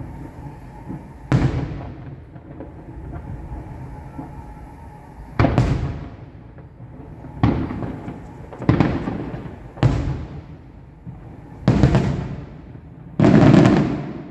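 Aerial fireworks bursting: about seven sharp booms at irregular gaps of one to four seconds, each trailing off in a rumbling echo, the last the loudest and longest.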